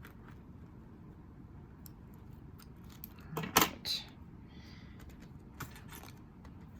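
A brief metallic clinking and rattling about three and a half seconds in, over a low steady background hum.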